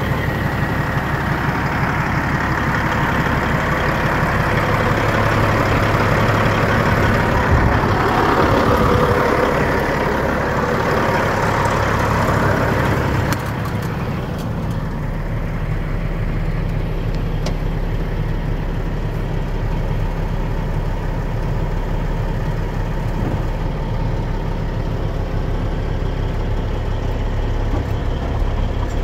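2000 Peterbilt 379 truck tractor's diesel engine idling steadily. It is heard first from outside beside the frame and exhaust, then quieter and muffled from inside the cab after about 13 seconds.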